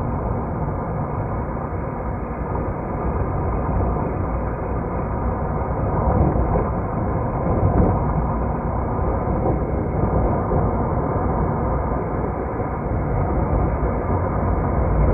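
Steady, deep, unbroken noise of a vehicle on the move.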